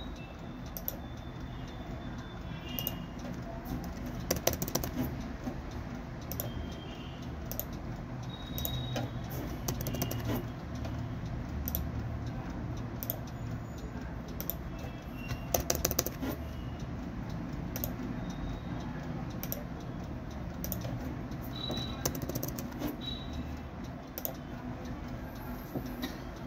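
Room ambience: a steady low hum with scattered light clicks and a few short, high chirps.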